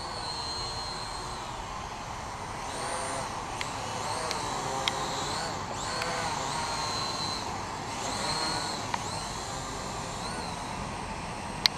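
Syma X8W quadcopter's motors and propellers whining overhead, the pitch rising and falling as it is steered, over a steady rushing background. A few sharp clicks, the loudest near the end.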